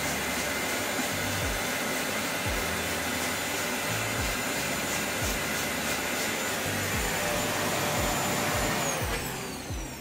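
Vacuum cleaner running steadily, then switched off about nine seconds in, its whine falling away as the motor winds down.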